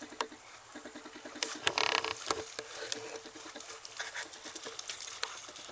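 German shepherd splashing out of a pond and running through the shallows at the water's edge: scattered splashes and patters, the loudest splash about two seconds in.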